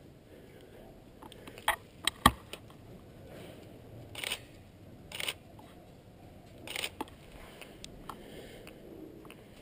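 A few sharp clicks and knocks, the loudest about two seconds in, then slow footsteps crunching on gritty debris, about one step a second.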